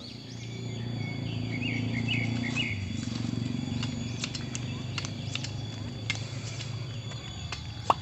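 Small birds chirping in short bursts over a low drone and a steady high tone of the forest background, followed by scattered crackles and snaps of dry leaves and twigs as a person moves through the leaf litter.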